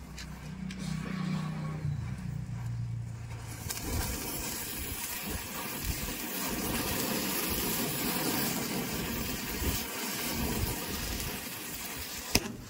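Burning matchsticks and fireworks in a chain reaction: from about four seconds in, a steady loud hiss of fireworks spraying flame. One sharp firecracker bang comes near the end.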